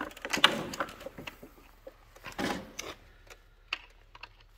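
Scattered light clicks and knocks, busiest in the first second and thinning out later, with a short rustling noise about two and a half seconds in: parts and tools being handled on a stripped-down diesel engine block.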